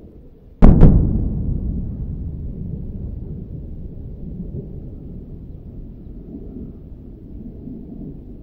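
A loud double crack, two sharp bangs in quick succession just over half a second in, followed by a low rumble that slowly fades away.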